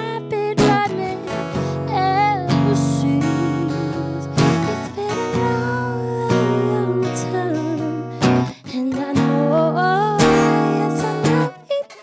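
Acoustic guitar strummed in a steady rhythm under a woman's singing voice, which holds long notes and winds up and down in pitch without clear words.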